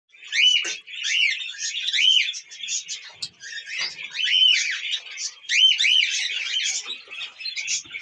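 Many caged pet birds chirping and chattering together. Loud arched chirps stand out over the busy chatter about half a second in, at one and two seconds, and again past four and five and a half seconds.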